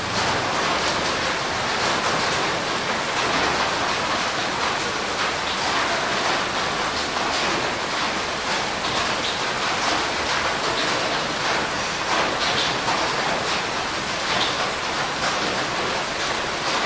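Steady heavy rain falling, an even hiss with many small drop hits scattered through it.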